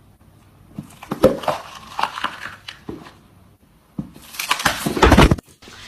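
A shoe stepping on and crushing something soft on a hard tiled floor: a few short squishing crunches, then a loud, longer crunching squish about four and a half seconds in.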